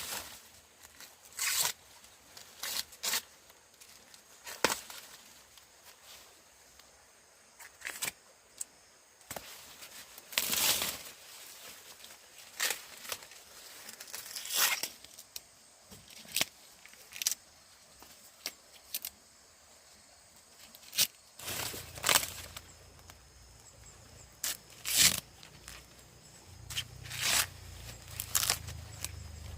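Corn ears being snapped and torn off the stalks, with rustling husks and leaves: sharp tearing snaps come irregularly, every second or two. A low rumble joins about two-thirds of the way through.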